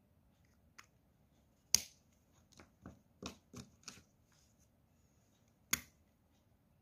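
Plastic caps of watercolour brush markers snapped on and off: two sharp clicks about four seconds apart, with a run of softer clicks and taps between them as the markers are handled.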